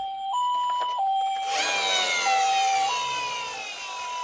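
Two-tone ambulance siren, a clean hi-lo pattern alternating between two pitches about every half second. About a third of the way in, a whistling sweep falls steadily in pitch over a couple of seconds on top of it.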